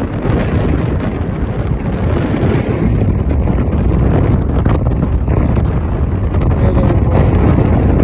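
Strong wind buffeting the microphone in a snowstorm: a loud, steady rumbling roar with small gusty surges.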